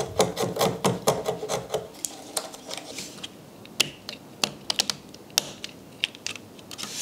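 Hand work on small pieces of wood: a dense run of quick scraping strokes for about the first two seconds, then scattered light wooden clicks and taps as thin kumiko strips are pressed into an asanoha lattice.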